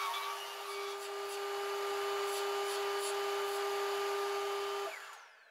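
Lombarte BDX 48 belt and disc sander's 550 W motor running steadily with a steady hum, then switched off near the end, its pitch falling as the disc and belt wind down.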